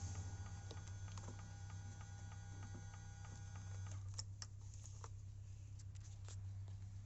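Power-folding side mirror motor and gears of a Hyundai Santa Fe CM running with a steady whine over a low hum. The whine stops about four seconds in, and a few scattered clicks and ticks follow.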